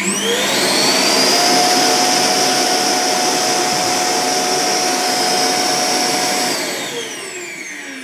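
iRobot Roomba Combo j7+ auto-empty dock's suction motor sucking the dirt out of the robot's bin into the dock's bag, a little bit noisy. It spins up with a rising whine, runs steady for about six seconds, then winds down with a falling whine near the end.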